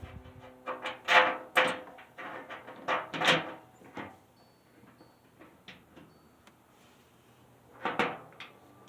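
Wheelbarrow parts being handled and fitted together: a string of sharp knocks and clunks in the first few seconds, a quiet stretch, then one more clunk near the end.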